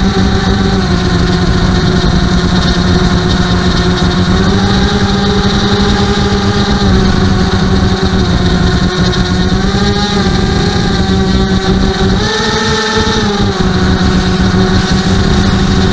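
ImmersionRC Vortex 250 racing quadcopter's motors and propellers whining in flight, heard from the onboard camera. The pitch steps up and down several times as the throttle changes.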